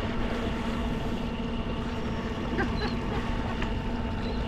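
Electric pedal-assist drive motor of an Old Town Sportsman BigWater ePDL+ kayak running at a steady, even hum under cruise control, over a low rush of water and wind.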